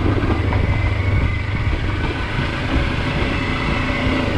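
Kawasaki Versys-X 300's parallel-twin engine running steadily in second gear as the motorcycle rides along a dirt and gravel trail.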